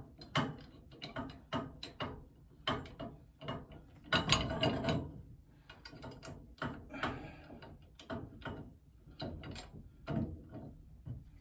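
Pipe wrenches tightening a threaded 2-inch steam pipe joint: irregular metal clicks and rasps as the wrench jaws slip back and bite again on the pipe. There is a longer grinding stretch about four seconds in.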